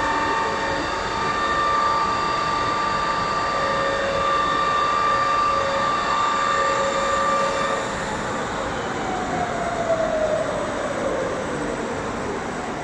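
TACCHI CNC heavy-duty lathe running, a steady machine noise with high whining tones that stop about eight seconds in, followed by a whine falling in pitch.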